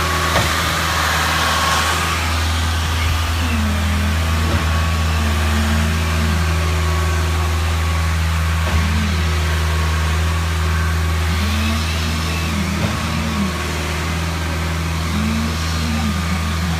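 Heavy engine running steadily with a constant low hum, with a few brief wavering tones over it.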